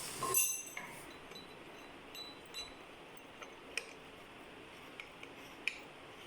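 Light clinks and taps of small hard fittings being handled, with one brighter ringing clink just after the start and a few faint, widely spaced ticks after it.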